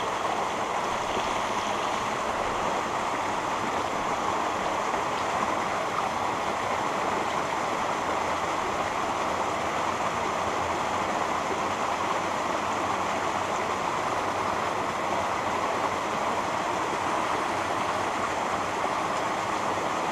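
Small mountain stream flowing steadily over stones and a little cascade, an even sound of running water.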